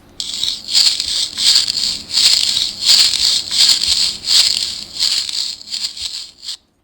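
Sound book's giraffe button playing its sound effect: a run of about ten scratchy, rustling bursts, roughly one every 0.7 seconds, that stops suddenly.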